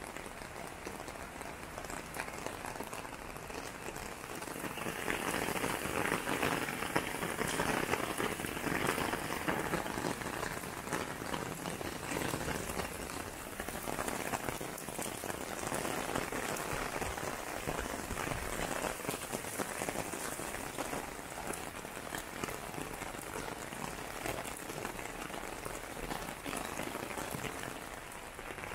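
Steady rain falling, a dense hiss of many small drop impacts, heavier for several seconds from about five seconds in.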